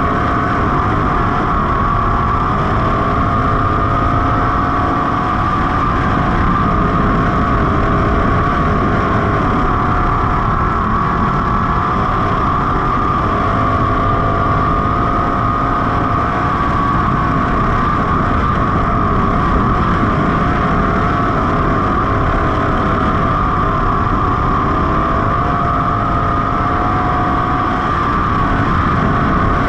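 305 sprint car's V8 engine at racing speed, heard from on board the car. The engine note holds high and steady, with small rises and falls in pitch through the laps.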